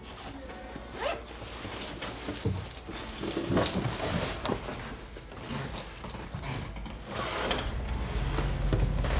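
Rustling of a backpack and clothing, with a zip, as the bag is packed and slung onto the shoulders. The rustling comes in uneven bursts, heaviest in the middle and again near the end.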